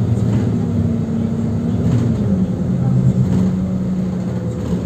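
City bus moving, heard from inside the passenger cabin: a steady low drive hum made of several tones, which shift in pitch about two seconds in.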